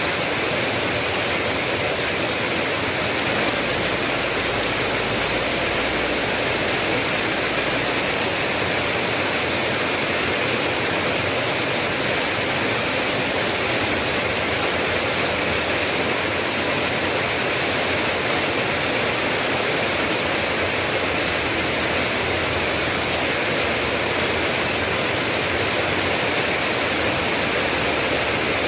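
Steady heavy rain, an unbroken even hiss with no single drops or other events standing out.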